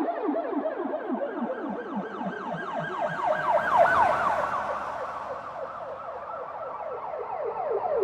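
Police siren in a fast yelp, its pitch sweeping down several times a second without a break. It swells loudest about halfway through with a rushing noise, then eases off.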